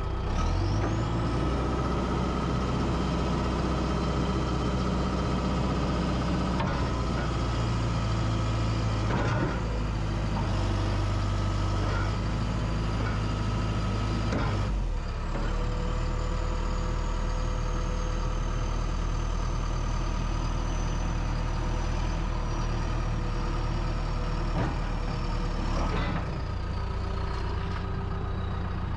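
The 52 hp Tier 4 diesel engine of a 2013 John Deere 310K EP loader backhoe running while the machine works. Its note changes several times, most clearly about halfway through and again near the end, and a thin high whine glides up and down over it.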